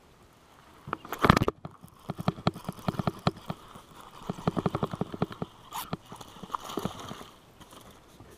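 Baitcasting reel being cranked, giving runs of quick, regular clicking as line is wound in, with a short loud noise about a second in.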